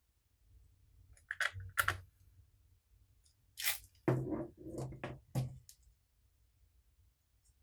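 Slime being worked: a few short clusters of sticky, crackling handling noise, about a second and a half in, again near three and a half seconds, and a longer run between four and six seconds.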